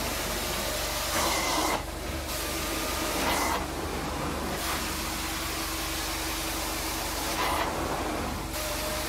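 Truckmount carpet-cleaning wand (a Devastator wand) working across carpet: a steady hiss of suction and water spray over a low hum, the hiss dropping away briefly three times.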